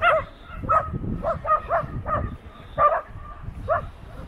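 A dog barking repeatedly, about nine short, high yaps in quick runs.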